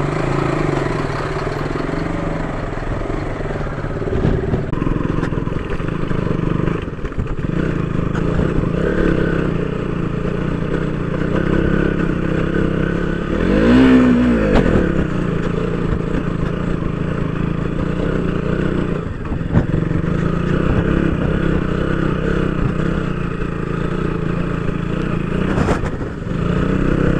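Motorcycle engine running while riding a rough gravel track, with clatter and a few sharp knocks from the bumps. About halfway through the engine revs up and back down briefly.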